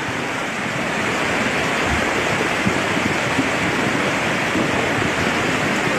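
Muddy floodwater torrent rushing down a village street in a steady, loud rush: a small mountain stream turned flash flood, swollen by days of continuous rain.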